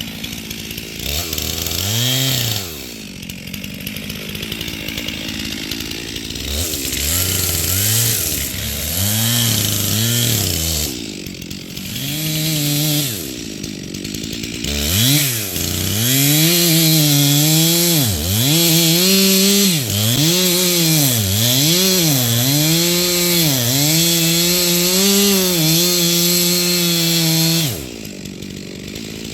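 Two-stroke chainsaw blipped to high revs several times, then held at full throttle through a long cut, its pitch sagging again and again as the chain loads in the wood, before dropping back to idle near the end.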